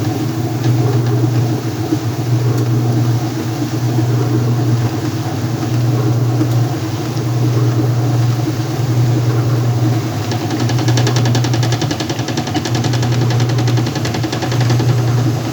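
Whirlpool washing machine in its spin stage, its motor humming in swells about every second and a half, with a fast rattle setting in about two-thirds of the way through. The machine is slow to spin up, which the owner describes as it not wanting to spin.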